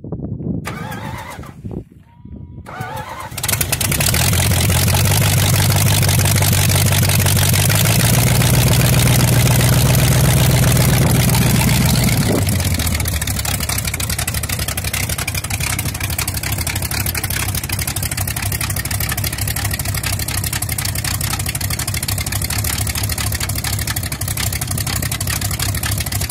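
Chrysler 318 V8 with homemade headers on a cold start. It catches about three and a half seconds in after some irregular cranking sounds, then runs at a high fast idle. About twelve seconds in it drops to a lower, steady idle.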